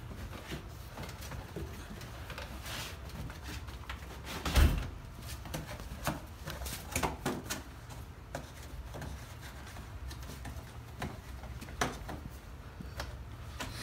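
Scattered clicks and knocks of tools and parts being handled, with one loud thump about four and a half seconds in, over a low steady hum.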